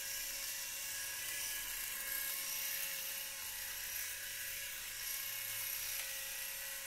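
Electric shaver running with a steady high motor whine as it is pressed to the face, cutting stubble.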